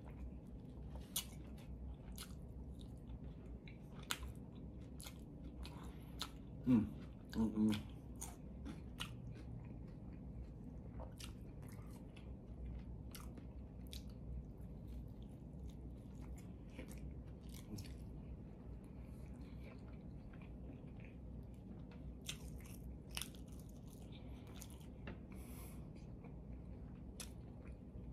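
A person chewing and biting into a homemade cheeseburger and fries, with many small mouth clicks and crunches. Two short, louder vocal sounds come from the eater about seven seconds in.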